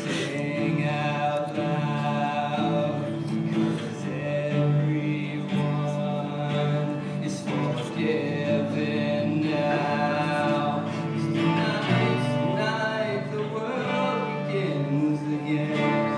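Live performance of a song by a small band with acoustic guitar and keyboard, with voices singing.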